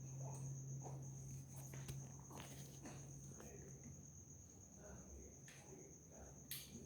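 Faint clicks and scrapes of small metal parts being handled as a circlip is worked into a scooter piston's gudgeon-pin bore, over a steady high-pitched tone and a low hum that stops about halfway through.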